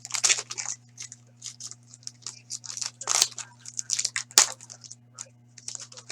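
Trading-card foil pack wrappers crinkling and tearing and cards being shuffled by hand, in irregular short rustles with a sharper snap about four seconds in. A faint steady electrical hum underneath.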